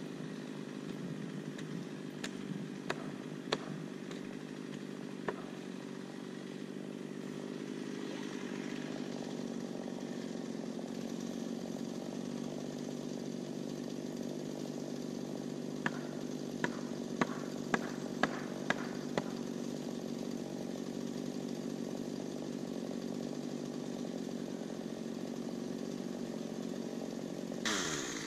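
Chainsaw running steadily at a distance, with a few sharp ticks now and then. It swells louder right at the end.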